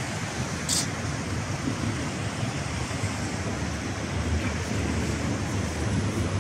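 Steady city street traffic noise, a low rumble of passing vehicles, with a brief sharp click less than a second in.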